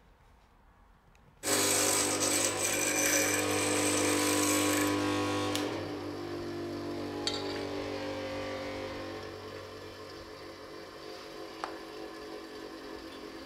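A power tool at the workbench starts suddenly and runs loudly with a steady hum and a bright hiss for about four seconds, then cuts back to a quieter steady sound that fades.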